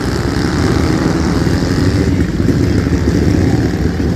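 Two vintage Triumph motorcycles revving hard as they pull away from the hill-climb start line, their engines running loud and steady with a rapid, rough firing beat.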